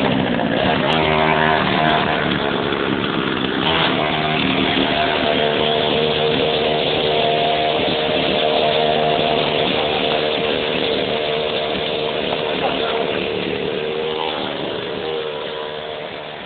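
Small 49cc petrol scooter engine running under way, its pitch rising and falling with the throttle. It grows fainter over the last few seconds.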